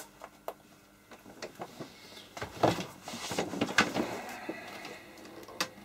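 Hand tools being handled on a workbench: a string of clicks, taps and short scrapes, the loudest about two and a half and four seconds in.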